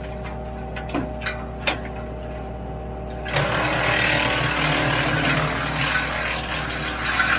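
Kubota L3901 tractor running a WoodMaxx MX-8800 PTO-driven wood chipper at a steady hum, with a few sharp clicks about a second in. About three seconds in, a louder, rougher noise sets in and holds.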